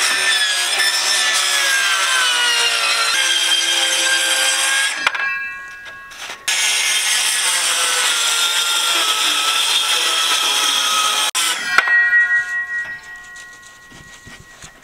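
Circular saw cutting through wood framing, its motor whine dropping in pitch as the blade takes the load. It winds down about five seconds in, starts again with a second cut, then a click, and the blade spins down to a stop.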